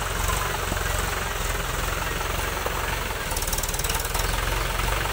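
Mahindra 575 DI tractor's four-cylinder diesel engine running steadily, its firing a fast, even beat.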